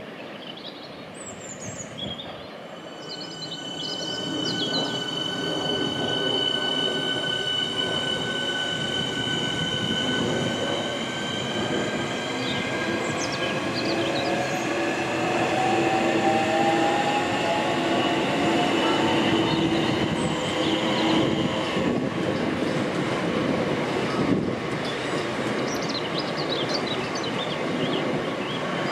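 Southeastern electric multiple unit passing on curved track, its wheels squealing in several high, drawn-out tones. It grows louder a few seconds in, and a lower whine rises in pitch midway.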